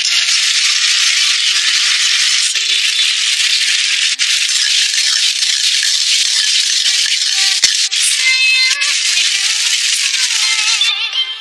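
Sweet-and-sour sauce sizzling and bubbling in a hot wok as fried pork ribs are stirred through it with a metal ladle, a steady hiss with one sharp knock of the ladle about two-thirds of the way in.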